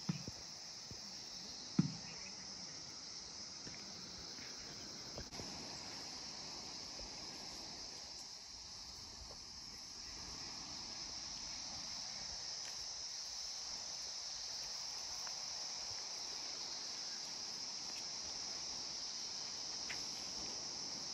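Insects making a steady, high-pitched drone, with a couple of short faint knocks in the first two seconds.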